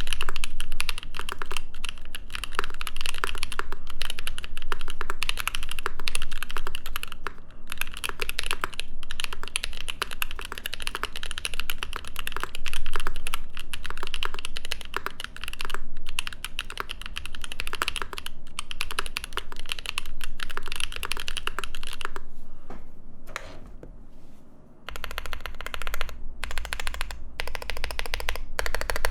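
Mechanical keyboard typed on quickly and continuously, a dense run of key strikes from linear switches: Gazzew Thocky linear stems in Boba housings, built dry with only the spring bottoms lubed. The typing thins out for a few seconds shortly before the end, then picks up again.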